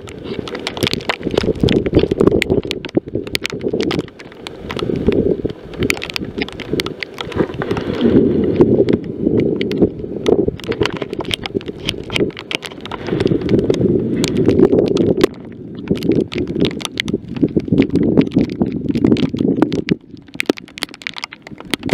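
Strong, gusty wind buffeting the microphone, swelling and easing every few seconds, with many sharp crackles through it.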